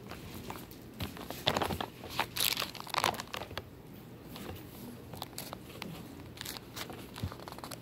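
Bible pages being leafed through: irregular bursts of paper rustling and crinkling, loudest between about one and three and a half seconds in, then lighter scattered rustles and clicks.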